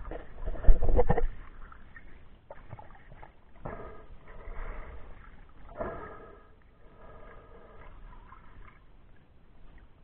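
Muffled water noise picked up by a camera held underwater, with a loud bump about a second in and softer swishing and sloshing after it.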